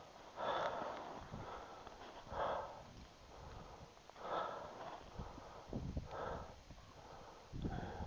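A person breathing heavily through the nose close to the microphone, about one loud breath every two seconds, with fainter breaths in between.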